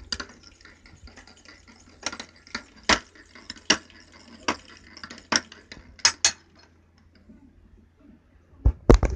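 Sharp metal clanks from a motorized bicycle engine being moved by hand with its cylinder off, about one every half second to second. A pause follows, then a quick run of three or four clanks near the end.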